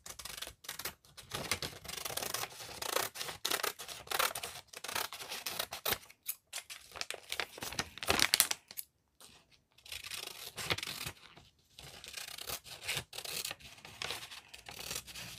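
Scissors cutting through a sheet of printer paper, snip after snip with a few short pauses.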